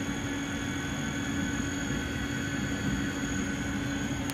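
Fadal 914 vertical machining center running under power: a steady mechanical hum with a fainter high whine, and one short sharp click near the end.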